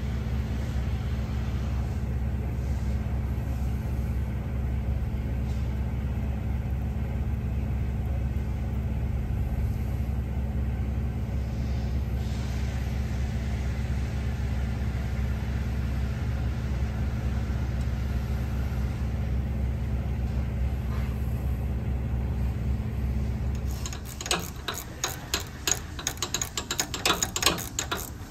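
A steady low machine hum that cuts off near the end, followed by rapid, uneven clicking of a ratchet wrench being worked on the high-pressure pump.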